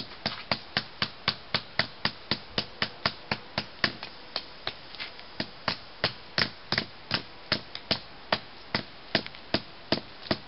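A hammer striking a tent stake, driving it into the ground: a steady run of sharp blows, about three a second.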